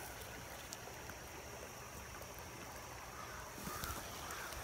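Mountain stream running over rocks: a steady, faint rush of water.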